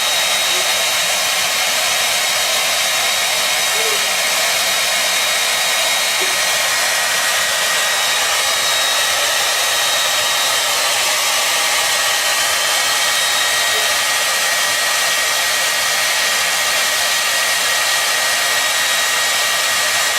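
Hair dryer running steadily: a constant rush of blown air with a steady high whine from its motor.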